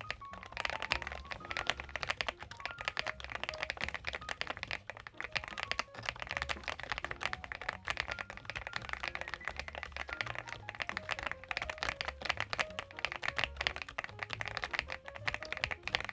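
Fast, continuous typing on a CIDOO ABM066 gasket-mounted mechanical keyboard: a dense, unbroken run of key clicks.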